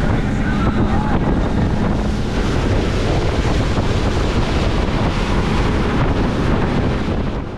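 Wind buffeting the microphone over rushing spray and wake water from a center console boat running at speed, with a steady drone from its twin Yamaha 300 outboards underneath.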